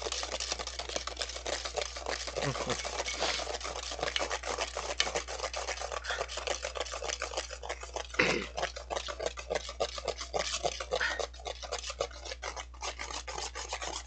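Wire balloon whisk beating dalgona coffee (instant coffee and sugar) by hand in a stainless steel bowl: rapid, even strokes of the wires scraping and clattering against the metal as the mixture is whipped.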